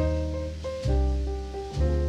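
Instrumental passage of a slow jazz ballad: sustained chords over a deep bass note struck about once a second.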